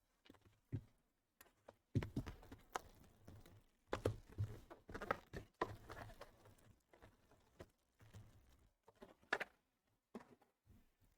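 Trading card packs and cards being handled on a table: irregular rustling, clicks and taps, busiest in the middle, with a few sharp knocks near the end.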